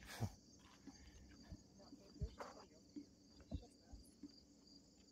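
Faint evening insect chorus of crickets, a continuous high-pitched trilling, with a few soft low thumps scattered through it.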